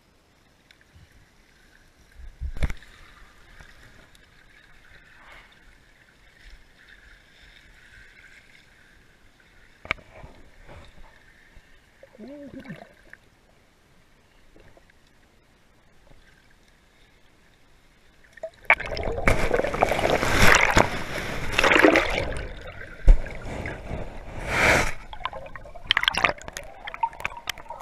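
Muffled, fairly quiet sound from a camera underwater, with a few knocks and a brief bubbling gurgle. About two-thirds in it gives way to loud, churning splashes of water as the camera moves at and through the surface.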